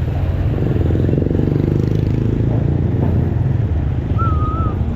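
Steady low rumble of road traffic and wind while riding along a road, with motor vehicles running nearby. A brief high wavering whistle about four seconds in.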